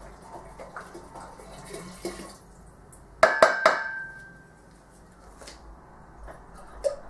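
Liquid pouring from a plastic bottle into a metal still tank. A little after three seconds in, three sharp knocks with a brief metallic ring as the bottle meets the metal tank, then one more knock near the end.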